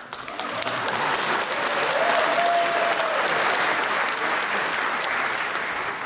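Audience applause that swells up at once, peaks and then slowly eases off, with one long drawn-out cheer from a single voice about two seconds in.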